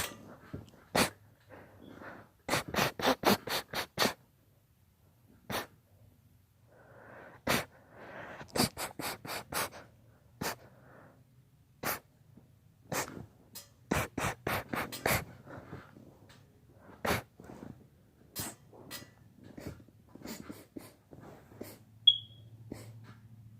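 A fit of sneezing: short, sharp sneezes and snorts, some coming in quick runs of half a dozen or so, with breathing and sniffing in between. A brief high-pitched squeak near the end.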